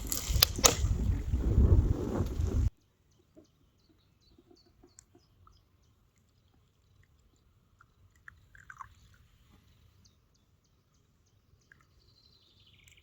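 Loud rumbling noise with a couple of sharp clicks, which cuts off abruptly just under three seconds in; then faint, scattered bird chirps and short calls over a quiet background.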